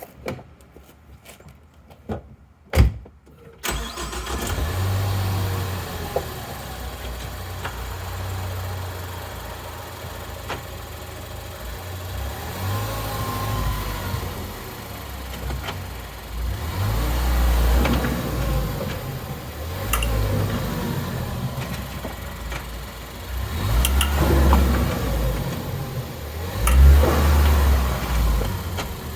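2014 Ford Focus with a worn driver-side wheel bearing, giving a low rumble; the noise was first blamed on the axle. After a few quieter seconds with a couple of clicks, the car's running noise comes in about four seconds in, and the low rumble swells and eases unevenly after that.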